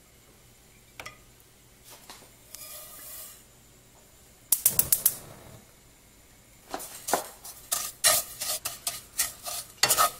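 Cooking utensil sounds on a nonstick frying pan. A few light knocks come first, then a quick cluster of sharp clicks about halfway through. Over the last three seconds, a wooden spatula repeatedly scrapes and taps as it stirs panko breadcrumbs in the pan.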